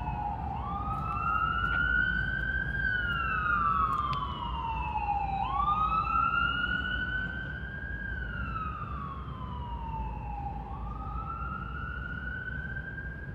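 An emergency vehicle's siren wailing, its pitch rising and falling slowly in about five-second cycles, over a low steady rumble.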